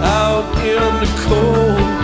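Live rock band playing an instrumental passage: a lead electric guitar bends and slides between notes over a steady bass line and drums.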